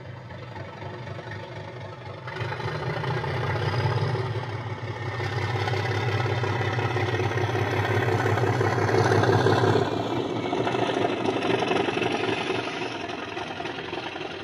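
Model diesel locomotive running past, its diesel engine sound played through a small onboard speaker with a steady low hum. It swells as the locomotive approaches, is loudest about ten seconds in as it passes close by, then eases off.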